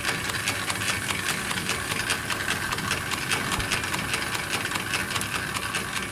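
Machinery of a snack food extrusion line running: a steady mechanical hum with rapid, irregular clicking over it.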